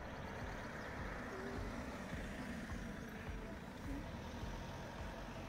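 Street traffic: a car drives past on the road, its tyres and engine swelling and fading over a steady low rumble of city traffic.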